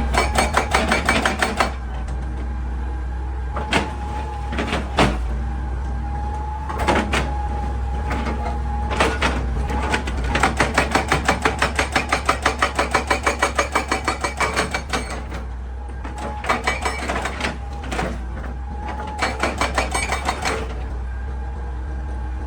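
Hitachi EX200 excavator running while a hydraulic rock breaker hammers rock, a run of rapid blows at about eight a second lasting roughly five seconds, with a short run at the start and a few single knocks between. A steady machine hum and a thin steady tone lie under the blows.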